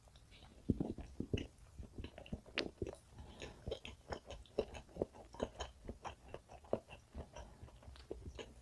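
Quiet, close-miked chewing of a mouthful of soft black sesame castella with whipped cream: soft, irregular mouth clicks and smacks, several a second, starting about a second in.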